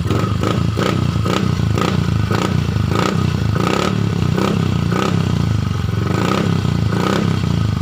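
Yamaha Mio i125 scooter's single-cylinder engine running through an AI-Tech aftermarket muffler with its tip removed, giving a loud, open exhaust note. The throttle is blipped in short repeated bursts, a little under two a second, over a steady idle.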